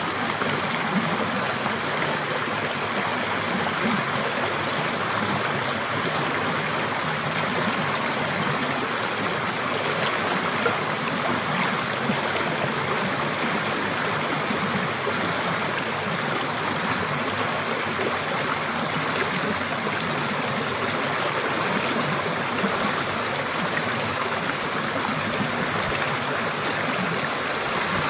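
Shallow stream rushing over a low stone ledge and splashing among rocks: a steady, unbroken rush of water.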